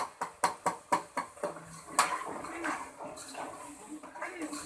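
Cooking spoon knocking and scraping against a pot while keema and potatoes are stirred and fried. The strokes come in a quick, even rhythm of about four a second, stop about a second and a half in, and are followed by one louder clank and then softer, irregular scraping.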